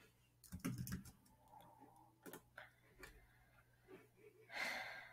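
Faint computer keyboard typing and mouse clicks: a quick run of keystrokes about half a second in, then scattered single clicks, with a short hiss near the end.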